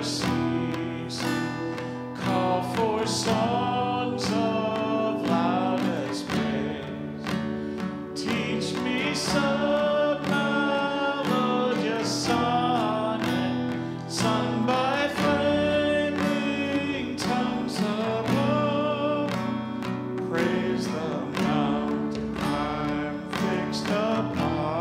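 Church worship band playing a hymn: acoustic guitars strummed over keyboard chords, with singers carrying the melody.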